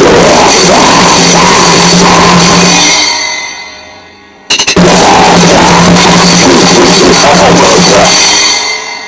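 Noisecore recording: a dense, loud wall of drums, cymbals and distorted instruments with a steady low note. It plays in a short burst that fades out after about three seconds, then a few quick clicks, then a second burst of about four seconds that fades out near the end.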